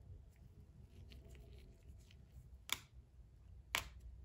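A small shungite stone tapping on a tablet's glass screen: faint light ticks, with two sharper taps about two and a half seconds in and again a second later.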